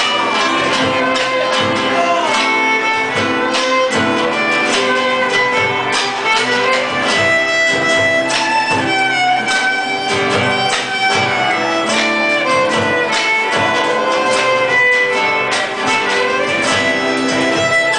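Instrumental Argentine zamba played live: a violin carries the melody in long, sliding notes over three acoustic guitars plucking and strumming the accompaniment.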